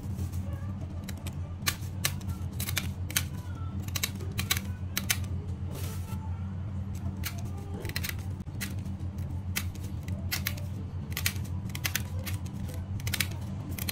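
Small scissors nibbling around the edge of a plastic eyeglass lens blank, giving a string of sharp, irregular snips about two or three a second. A steady low drone runs underneath.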